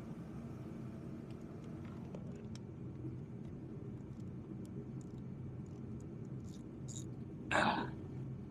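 Small clicks of tools and parts being handled in an engine bay, with one short, loud scrape or rustle about seven and a half seconds in, over a steady low hum.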